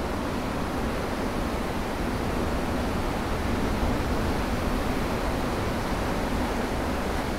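Ocean surf breaking and washing over a rocky shore: a steady, even rush of whitewater that swells slightly a couple of seconds in.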